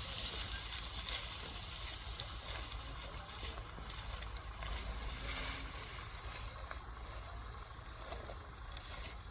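Dry wheat stalks rustling and crackling as they are harvested by hand, with a few louder swishes, the loudest about a second in.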